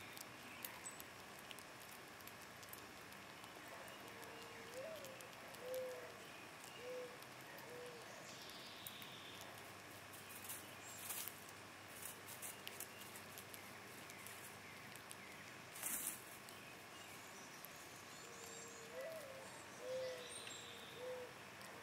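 A bird's low call, a phrase of four or five short notes with a slight rise at the start, heard twice. Scattered sharp clicks and crackles, the loudest about three-quarters of the way through, come from a grey squirrel husking and nibbling seeds over a faint outdoor hiss.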